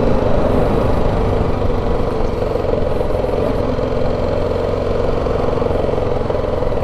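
Motorcycle engine running steadily at low speed as the bike rolls slowly, heard close up from on the bike.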